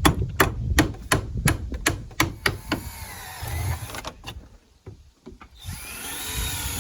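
Hammer driving a nail through a door's nailing flange into a wooden stud: a quick run of about ten strikes, roughly three a second. It is followed, after a pause, by a rasping, scraping noise lasting a second or so near the end.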